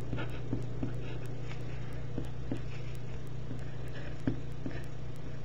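Pen writing on paper: faint scratching strokes and light taps at an uneven pace, over a steady low electrical hum.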